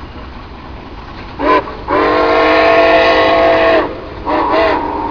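Nickel Plate Road 765, a 2-8-4 Berkshire steam locomotive, blowing its chime whistle as it crosses the bridge: a short blast, a long blast of about two seconds, then another blast broken once near the start, several tones sounding together, with faint rumble of the train underneath.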